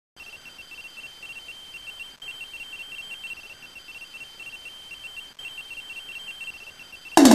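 A high electronic beeping tone, pulsing in quick short beeps, in three runs broken by brief gaps; a loud drum-led music theme cuts in at the very end.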